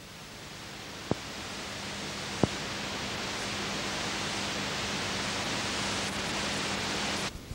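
Steady hiss of videotape noise under colour test bars, slowly growing louder, with a faint low hum and two sharp clicks about one and two and a half seconds in; the hiss drops away near the end.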